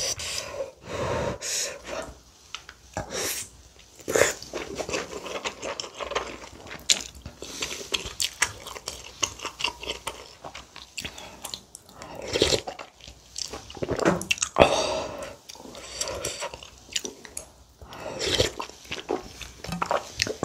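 A person chewing mouthfuls of rice and kimchi stew close to the microphone, with irregular short clicks and taps of a spoon and ladle against the dishes.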